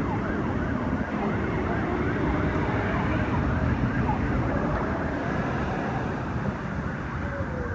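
Emergency vehicle siren in a rapid up-and-down yelp, several sweeps a second, over a steady low rumble. Near the end one long falling sweep.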